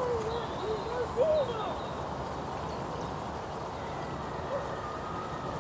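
A young child's high voice calling out in short wordless bits during the first second and a half, then only a steady background hiss.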